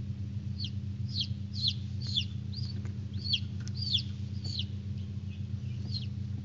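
Newly hatched chicken chicks peeping: about ten short, high calls that each slide down in pitch, roughly two a second, over a steady low hum.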